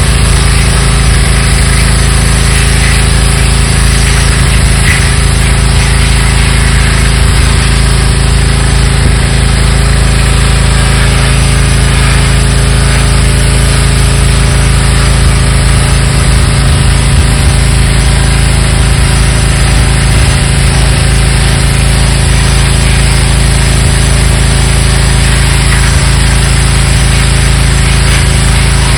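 Pressure washer's engine running steadily, with a constant hiss over its hum.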